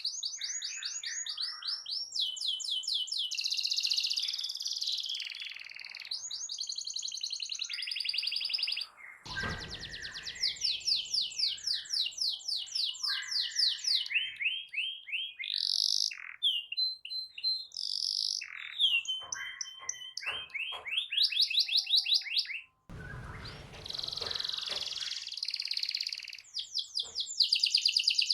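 Domestic canary singing a long, non-stop song of rapid rolling trills and whistled notes. The song cuts off abruptly twice and picks up again straight away.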